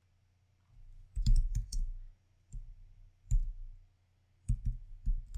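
Keystrokes on a computer keyboard, typing a terminal command: short clicks in about four quick bursts separated by brief pauses, starting about a second in.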